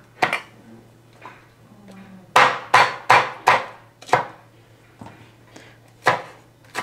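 Sharp, irregular knocks of food being struck against a hard kitchen surface, such as a knife on a cutting board or a pestle in a stone mortar. There are about seven strikes, with four in quick succession a little over two seconds in.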